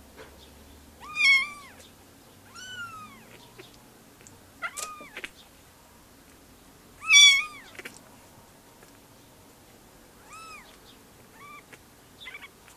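Kitten mewing: a string of about seven short, high-pitched mews, the loudest about a second in and about seven seconds in.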